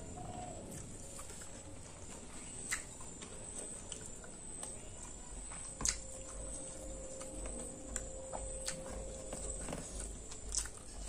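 A person chewing food close to the microphone, with wet mouth sounds and a few sharp clicks scattered through.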